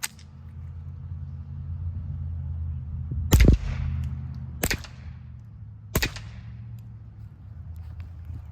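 Three suppressed .22 LR shots from a Ruger Mark IV 22/45 Lite pistol fitted with a CMMG Defcan-22 suppressor, firing CCI subsonic rounds, about 1.3 seconds apart, the first the loudest. They peak around 84 dB on the meter, over a low steady rumble.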